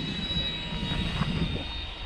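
Electric motor and propeller of a foam RC model of an F6F Hellcat whining in flight, a high thin tone that drifts slightly in pitch, with wind rumbling on the microphone.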